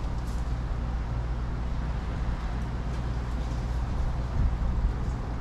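Thunderstorm ambience: a steady low rumble with a light hiss over it, and no single sharp thunderclap.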